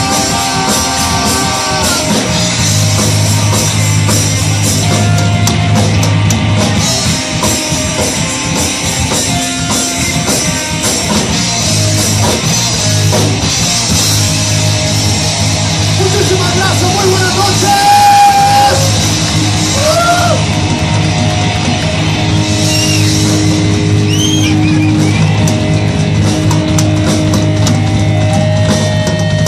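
Live rock band playing: electric guitars, bass guitar and drum kit, with a singer's voice in places.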